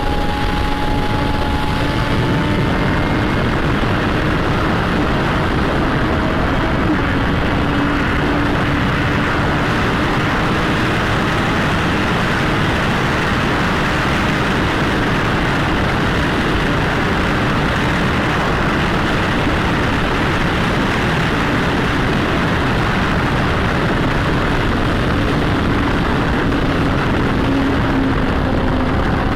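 Motorcycle ridden at a steady speed: wind rushing over the microphone, with the exhaust note holding a steady pitch underneath.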